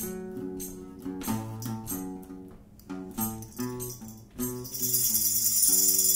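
Instrumental break in a live gospel song: guitar picking and strumming chords, with a tambourine jingling steadily in the last second and a half.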